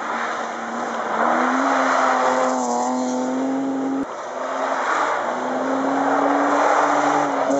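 Two rally cars in turn on a snowy forest special stage, each engine revving up and held at high revs under hard throttle over a hiss of tyres on snow. The sound breaks off abruptly about halfway, where the second car takes over.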